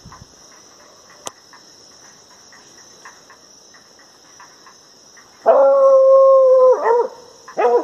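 An American hunting hound baying: one long held howl starts about five and a half seconds in and drops away at its end, followed by a short second bay near the end. It is the voice of a hound working an armadillo. Steady night-insect chirring runs underneath.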